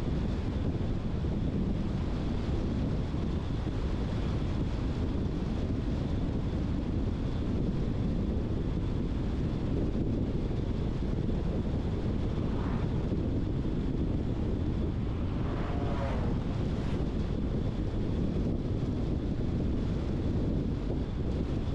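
Steady low road and wind noise of a car driving, with two short sounds of changing pitch a little past halfway.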